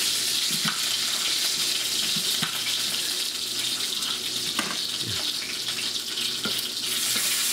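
Italian sausage sizzling in a frying pan, a steady hiss, with a few faint knife cuts through an onion on a cutting board.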